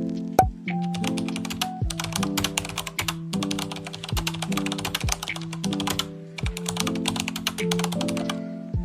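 Intro music: held chords that change every second or so over occasional deep kick-drum thuds, with fast clicking percussion, dense through the middle, that sounds like keyboard typing.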